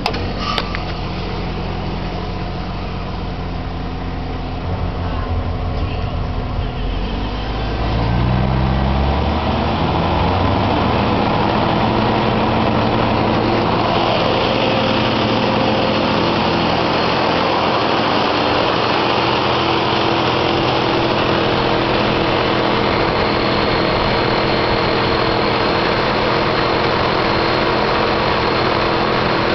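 Jeep engine running with its belt-driven York compressor pumping the on-board air tank up toward 150 psi. About eight seconds in, the engine note rises in pitch and gets louder, then holds steady.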